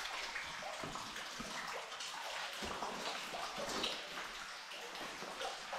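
Cave stream water running and splashing, with scattered footsteps and small knocks on wet rock.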